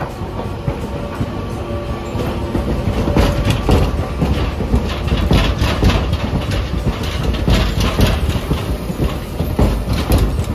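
Hiroshima Electric Railway 3800-series articulated tram rolling slowly past at close range. Its wheels clack over the rail joints in a quick, irregular run of knocks over a low rumble, starting about two and a half seconds in.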